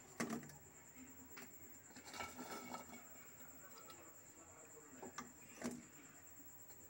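Faint, sparse clinks and taps of a spoon against a metal pan as fried bread gulab jamuns are slid into warm sugar syrup, with near silence between them.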